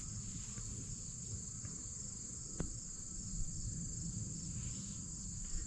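Steady, high-pitched drone of an insect chorus, with a low rumble underneath and one sharp click near the middle.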